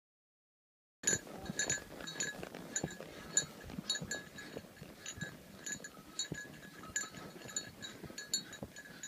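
Small bells on a walking horse's tack jingling with its steps, starting about a second in, with a ringing strike about twice a second.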